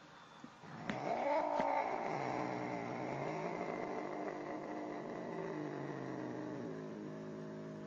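A cat's long, low, drawn-out yowl, starting about a second in with a bend in pitch and then held for several seconds.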